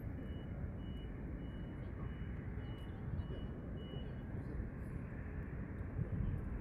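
Steady low rumble of background noise, with a faint high-pitched beep repeating about twice a second that stops about four seconds in.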